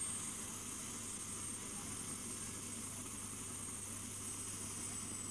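Helicopter running on the ground with its rotor turning: a steady engine noise with a high steady whine, holding level throughout.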